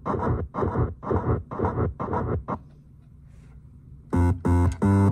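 Buzzy electronic tones from an 8-bit synthesizer run through a Subdecay Noise Box and a digital delay, played over a speaker. A pulsing pattern of about two and a half notes a second stops about halfway through. After a short gap come three loud, brighter stabs near the end.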